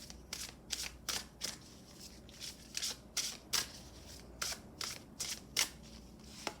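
A deck of tarot cards being shuffled by hand: a run of short, quick swishes, about two or three a second, with brief gaps.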